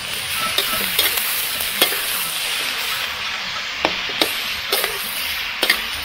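Cabbage sizzling in a hot wok as it is stir-fried, with a metal spatula scraping and clinking against the pan several times while the cook turns it.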